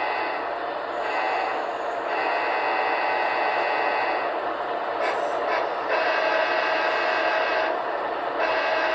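HO-scale model locomotive horns from sound-equipped engines blowing together: a held chord of steady horn tones over a noisy hiss, dropping out and changing briefly several times.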